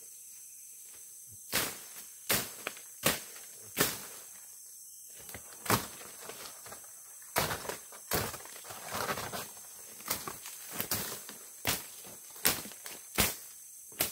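A string of irregular knocks and rustles, one or two a second, over a steady high-pitched insect chorus.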